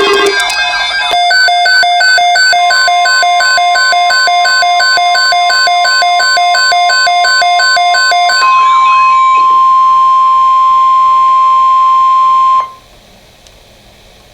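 Emergency alert signals. A rapid, evenly repeating beeping made of several tones plays for about seven seconds. Over it comes a single steady alarm tone, the 1050 Hz weather-radio warning alarm tone, which holds for about ten seconds and cuts off abruptly. Faint hiss follows.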